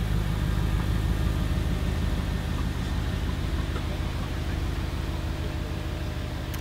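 Audi R8 engine idling steadily with a low, even rumble, growing slightly quieter toward the end.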